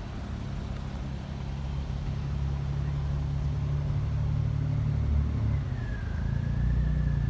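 Diesel multiple-unit train engine running as the train moves by the level crossing, growing louder. A steady high squeal comes in near the end.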